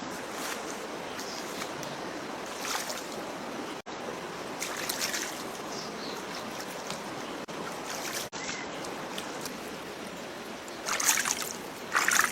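Stream water running steadily, with two louder noisy bursts near the end.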